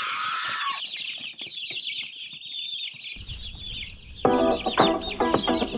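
Many chickens clucking and calling together, a dense chatter of short high calls. About four seconds in, background music with sustained notes starts over them.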